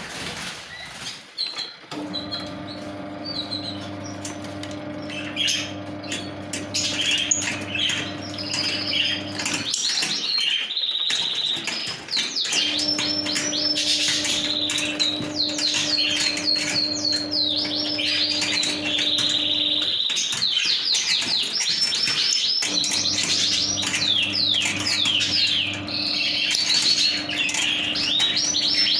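Lovebirds chattering: a dense stream of rapid, high chirps and squeaks that grows busier after about ten seconds. A steady low hum runs underneath and stops twice for a couple of seconds.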